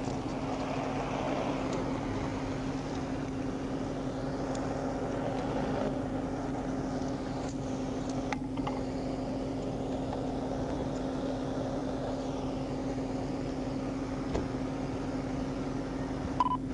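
Steady hum of a parked police patrol car idling, picked up by the in-car dashcam.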